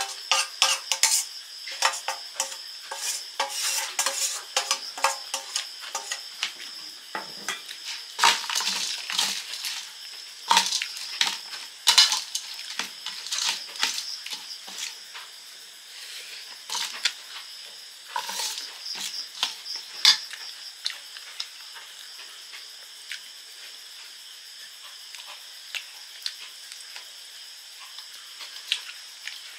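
A steel spoon scraping and clinking against a stainless steel bowl and plate while puffed rice is mixed, giving many sharp metallic clinks. They come thickly for about twenty seconds, then turn fewer and quieter.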